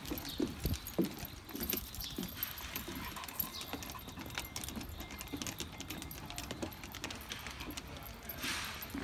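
Footsteps of a person and two Great Pyrenees walking on a wooden boardwalk: dull thudding steps, with light metallic jingling and fine clicking throughout.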